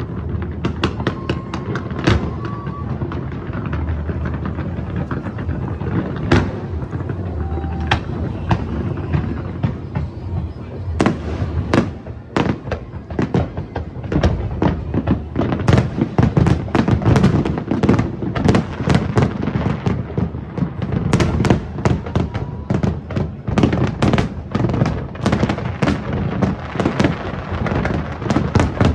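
Large aerial fireworks display: a continuous barrage of shell bursts and crackles, the bangs coming thicker and louder from about a third of the way in.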